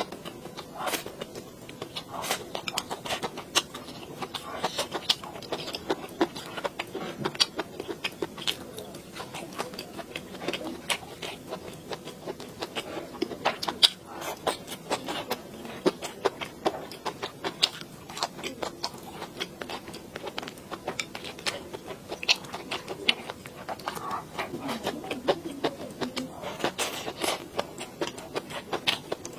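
Close-miked eating sounds: wet chewing and crunching of pork belly and bamboo shoots over rice, with many quick clicks and light scrapes of utensils against the bowl.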